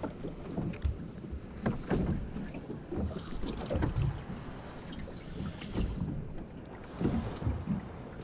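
Water lapping and knocking irregularly against the hull of a small boat at anchor, with wind on the microphone.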